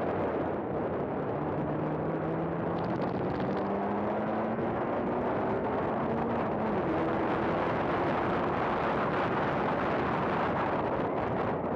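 Race car's engine pulling hard under acceleration, its note rising steadily for the first several seconds, under a heavy rush of wind on the onboard microphone.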